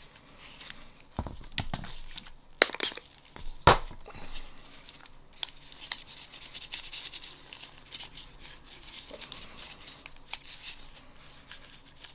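Glock pistol parts being handled and wiped down during cleaning. Several sharp knocks and clicks come in the first few seconds, then a softer rustling and rubbing of wiping with scattered small ticks.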